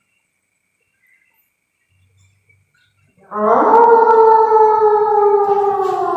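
A loud, long drawn-out wail, one pitched note that slowly falls, starts suddenly about three seconds in after near silence. It is the unexplained strange sound the night's ghost hunt turns on.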